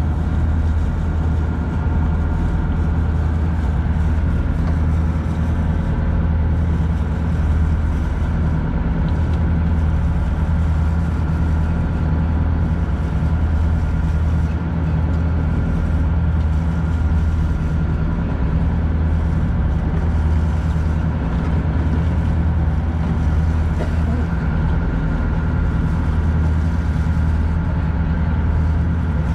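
A fishing boat's engine running steadily, a low, even hum with no change in pitch or level.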